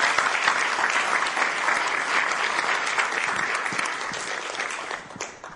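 A large audience applauding, dense clapping that fades and stops near the end.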